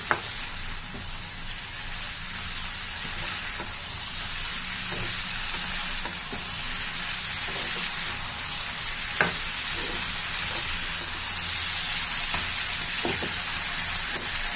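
Sauce-coated chicken pieces, bell peppers and onions sizzling steadily in a black iron kadhai as a slotted metal spatula stirs them, with a few sharp clinks of the spatula against the pan, the clearest about nine seconds in.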